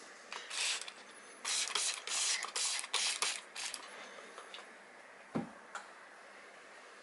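Paper towel crinkling and rustling in a series of short bursts as a hand handles and folds it, followed by a single soft thump about five seconds in.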